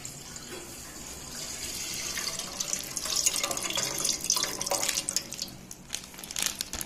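Milk poured in a thin stream from a plastic packet into an aluminium pot, splashing into the milk already in it. The pouring grows louder and more spattery from about two and a half seconds in.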